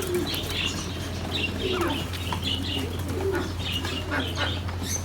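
Doves or pigeons cooing in low, repeated phrases over a busy chatter of small birds chirping.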